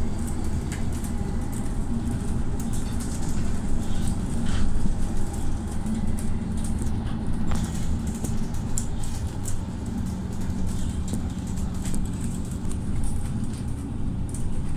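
Mercedes-Benz Citaro city bus under way, heard from inside the cabin: a steady engine drone whose pitch shifts a little, with scattered light clicks and rattles.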